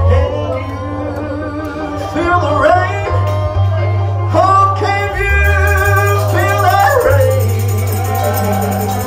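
Gospel song performed live with band accompaniment: a lead voice sings bending, sliding phrases over a steady bass, and a fast high shaking rhythm joins about halfway through.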